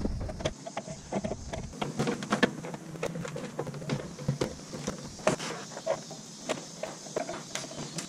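Hand work on a light aircraft's aluminium engine cowling as it is refitted: many quick, irregular clicks and light taps of panels and fasteners being handled.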